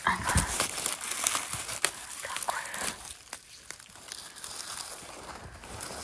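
Dry fallen leaves and twigs rustling and crackling as mushrooms are picked from the forest floor. The crackles are busiest in the first few seconds and then thin out.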